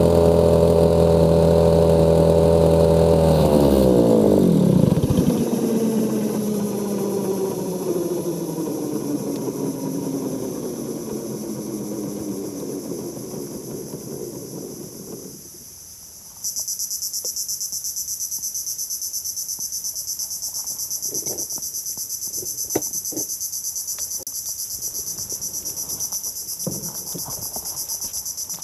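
A small outboard boat motor runs steadily, is throttled back about three seconds in, and drops in pitch, fading away over the next ten seconds. About halfway through, a loud, steady, high-pitched insect chorus starts suddenly, with a few light knocks near the end.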